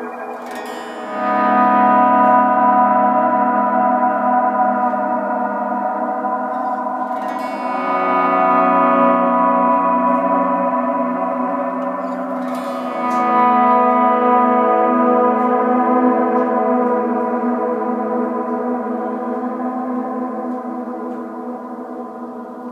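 Electric guitar, a 335 through a Swart AST amp, playing three chords as volume swells into a Mr. Black Supermoon modulated reverb with its sway knob at a deep setting. Each chord fades in about a second, 7.5 seconds and 13 seconds in, then rings on as a long, shimmering reverb wash that slowly dies away.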